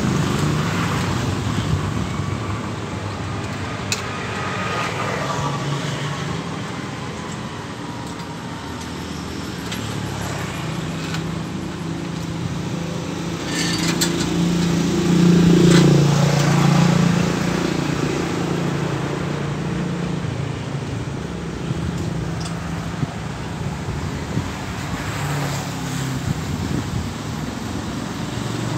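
Road traffic running past, a steady low engine hum, with one vehicle passing louder about halfway through. A couple of sharp clicks sound over it.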